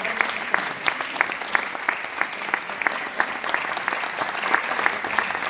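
Audience applauding, with sharp, evenly spaced claps about three a second standing out above the general clapping.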